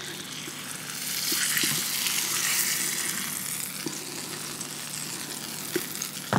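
Hot beef fat and juices sizzling in a cast iron pan straight from the oven as a seared sirloin cap roast is lifted out, a steady hiss that swells for a couple of seconds about a second in, with a few light clicks of handling.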